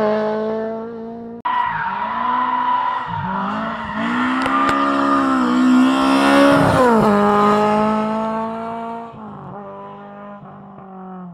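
Rally car engines run hard on a stage, rising and falling in pitch with the revs and gear changes. The sound changes abruptly about a second and a half in to a loud car close by, which then fades away over the last few seconds.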